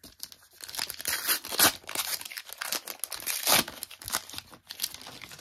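A Panini Top Class trading-card pack's wrapper being torn open and crinkled by hand, a continuous crackly rustle with louder crinkles about a second and a half and three and a half seconds in.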